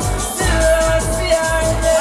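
Loud dancehall music over a sound system, with a heavy bass beat and a held vocal or synth line.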